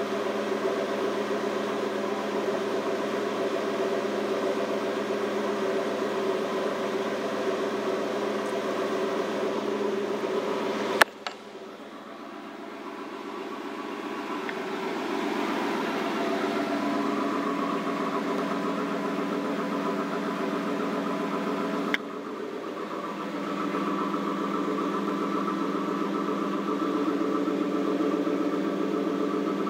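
1995 Pontiac Trans Am's stock 5.7-litre LT1 V8 idling steadily through its factory exhaust. A sharp click comes about eleven seconds in, after which the engine sound drops and slowly builds back. Another click comes about twenty-two seconds in.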